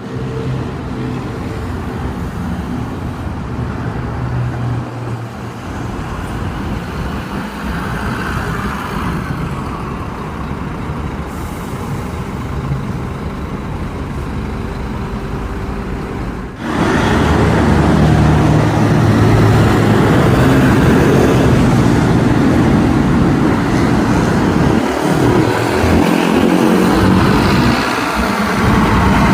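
Intercity coach's diesel engine running amid road traffic noise. About two-thirds of the way in the sound cuts suddenly to a louder, closer engine run.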